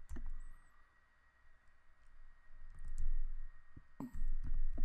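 Scattered light clicks of keys being pressed, with a few dull low thumps about three and four seconds in, over a faint steady high tone.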